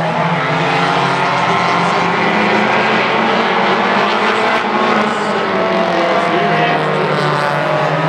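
Compact tuner race cars' engines running hard at racing speed, several overlapping engine notes gliding slightly up and down in pitch.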